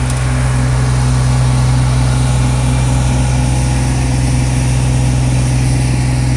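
Tank truck running steadily: a loud, constant low hum.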